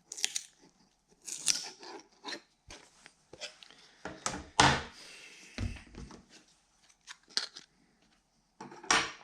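3D-printed plastic pieces being pried and peeled loose and handled: irregular crackles, scrapes and sharp clicks of plastic, the loudest snap about four and a half seconds in.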